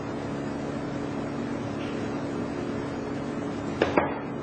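Machinery running with a steady hum, with two sharp clicks about a fifth of a second apart near the end.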